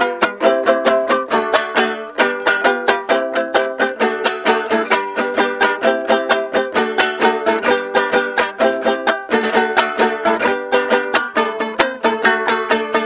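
Panamanian mejorana, a small five-string folk guitar, played solo: a Valdivieso tune in quick, steady strummed and plucked chords, several strokes a second with no pause.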